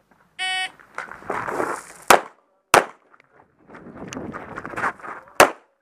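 A shot timer's electronic start beep, then three loud pistol shots: a quick pair about two seconds in and a third near the end. Footsteps and movement noise fill the gaps as the shooter runs the stage.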